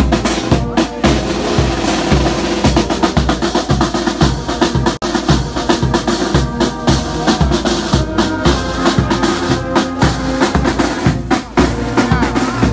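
Brass band with sousaphones and drums playing a hymn: sustained brass notes over a steady drum beat. The sound cuts out for an instant about five seconds in.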